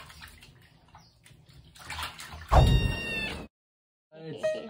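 A two-month-old kitten meows loudly once, about two and a half seconds in, a single call lasting about a second. After a short gap of silence, music starts near the end.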